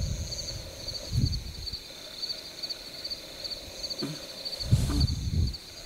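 A chorus of night insects chirping steadily in a fast, even pulse, with a couple of low rumbles, one about a second in and a longer one near the end.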